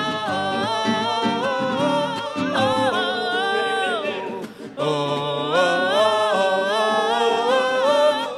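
Live band music: a melody sung without words, in two long phrases with a short break about halfway through.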